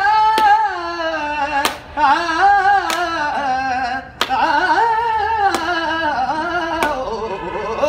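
A man singing a Punjabi song unaccompanied, drawing out long wavering notes, with a sharp hand clap about every second and a quarter keeping time.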